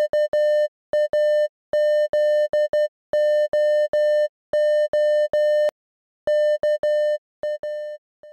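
Morse code beeps: one steady electronic tone keyed on and off in short and long pulses, the dots and dashes spelling out "KAZOO" and carrying on into more letters before stopping near the end.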